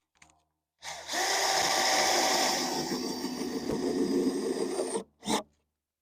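Power drill running for about four seconds, driving a screw into the roof framing, then a brief second burst.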